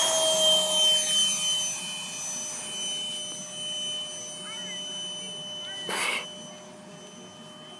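Electric ducted fan of a 64 mm RC F/A-18 jet whining as it flies past, its pitch dipping slightly and the sound fading away. A brief burst of noise comes about six seconds in.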